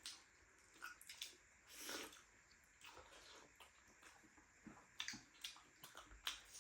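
Faint wet chewing and lip-smacking of someone eating a juicy momo, a scatter of small clicks and smacks.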